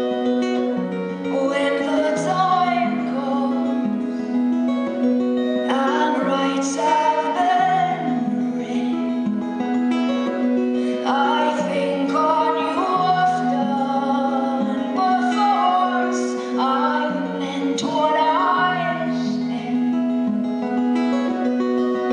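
A song performed live: a woman singing phrases that start about every five seconds, over a steady plucked guitar accompaniment.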